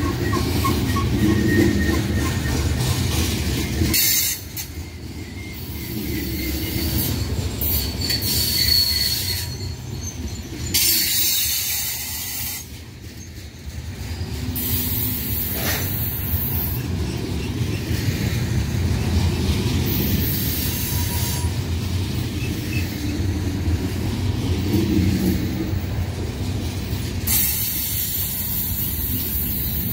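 BNSF freight train cars rolling past, their wheels clattering on the rails, with several brief high wheel squeals. The cars sound bouncy rather than loaded, which the observer takes as a sign they may be empty.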